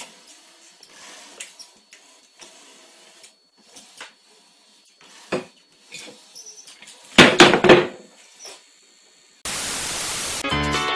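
Claw hammer swung by a power drill that holds its handle, knocking on a nail in wooden battens: scattered single knocks, then a fast flurry of hits about seven seconds in. Near the end, about a second of TV static hiss, then music starts.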